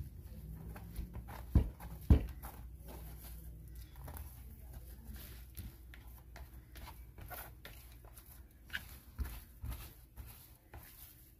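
Hands punching down and pulling risen bolillo dough in a plastic bowl: soft sticky squelches and small clicks, with two sharp knocks about one and a half and two seconds in.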